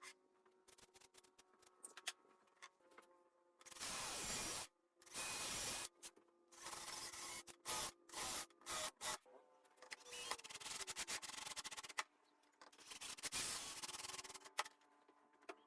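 Irregular rubbing or scraping strokes on a hard surface, each lasting from about half a second to two seconds with short pauses between, over a faint steady hum.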